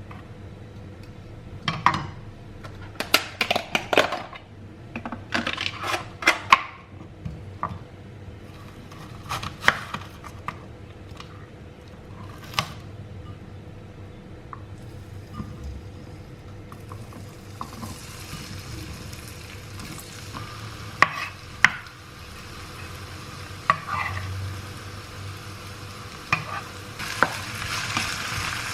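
Cooking utensil knocking, clinking and scraping against a pan, then a frying sizzle that starts about halfway through and grows louder near the end, with more knocks of the utensil over it.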